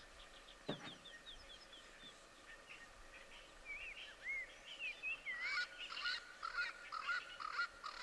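Wild birdsong: a quick run of short falling notes, then looping whistled phrases, then a busy chatter of several birds that grows louder from about five seconds in. A brief dull knock sounds just before the first second.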